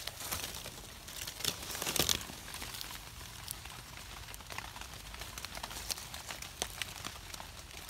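Rustling and crinkling of wet leaf litter and rain gear as hands pick mushrooms and trim them with a knife, with many small crackles and a louder flurry about two seconds in.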